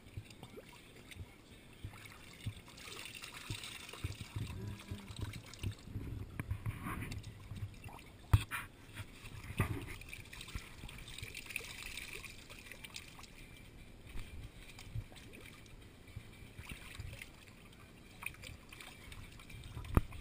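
Water trickling and splashing as a toddler scoops shallow paddling-pool water with a plastic cup and pours it back out, with a few sharp knocks.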